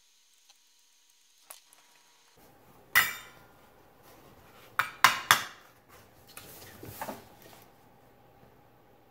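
Small metal hand tools clinking as they are set down and handled at a soldering bench: one sharp clank about three seconds in, then three quick clinks around five seconds, followed by a brief scraping.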